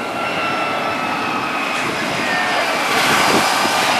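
Twin-engine jet airliner on final approach, its engines a steady rushing noise with a thin high whine, growing a little louder in the second half as it nears.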